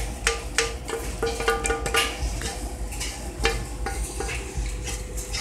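A spoon scraping and knocking against a skillet as sticky cooked fideo is scooped out into a plastic container: irregular clicks and scrapes, over a faint steady hum.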